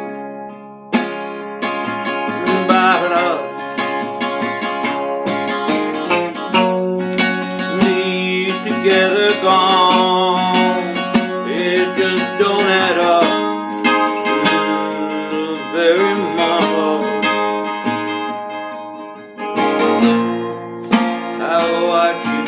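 Epiphone EL-00 parlor acoustic guitar strummed with a flat pick, chords ringing in a steady folk-rock rhythm.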